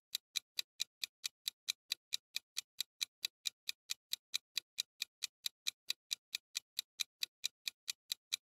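Countdown timer sound effect: evenly spaced clock-like ticks, about five a second, stopping as the countdown reaches zero near the end.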